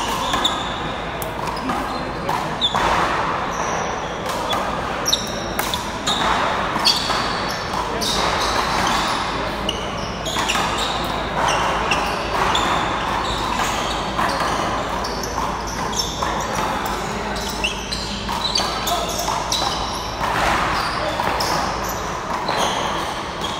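Small rubber handball repeatedly smacked against the wall and bouncing off the floor during a rally, sharp smacks scattered through the whole stretch and echoing in the hall. Short high squeaks of sneakers on the court floor come in between.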